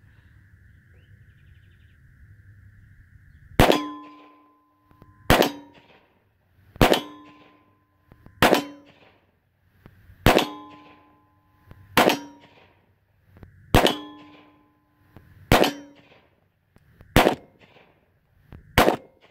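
Ten single shots from a Kriss Vector .45 ACP, fired one at a time at an even pace of about one every second and a half, starting a few seconds in. A metallic ring of struck steel targets follows several of the shots.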